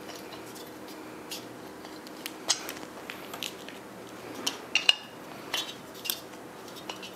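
Scattered metal clicks and clinks as a gas canister is screwed onto the brass hose connector of a Fire-Maple FMS-105 camping stove, the loudest click about five seconds in.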